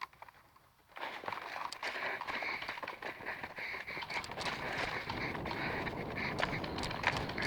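Quick running footsteps with steady rustling, starting about a second in and carrying on.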